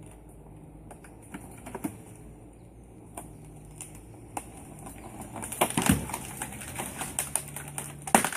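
Walnut branches and twigs cracking and snapping in irregular clicks as the broken tree crown is dragged. The crackling grows denser and louder over the last few seconds.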